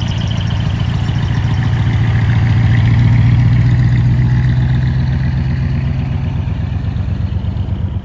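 Heavy diesel engine of a three-axle dump truck running as the truck rolls slowly past, a low steady hum that swells to its loudest about three seconds in and then fades.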